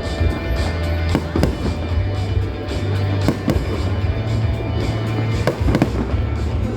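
Aerial fireworks going off in a series of sharp bangs, several in quick pairs, over loud music with a heavy steady bass.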